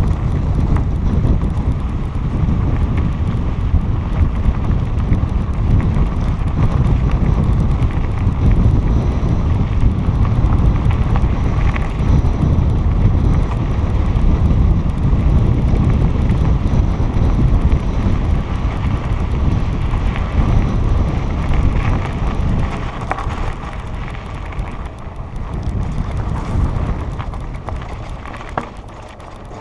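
Wind buffeting a helmet-mounted camera's microphone during a mountain bike ride on a dirt trail, a loud low rumble with scattered bumps from the bike and trail, easing off near the end.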